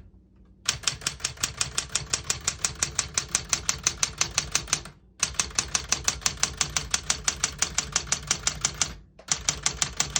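1964 Smith-Corona Classic 12 manual portable typewriter being typed on at an even, fast pace, about seven keystrokes a second. The typing comes in three runs with two brief pauses.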